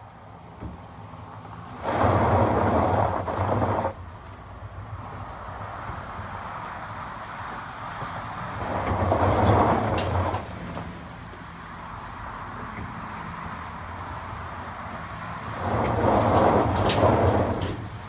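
Pickup truck engine idling, then revving hard three times for about two seconds each as it pulls on a tow strap to drag a dump truck's super-single tire off its rim.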